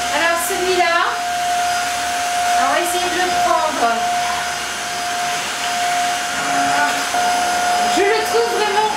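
Tineco Floor One S3 wet-dry vacuum mop running: a steady motor whine over the rush of its suction, unchanging throughout.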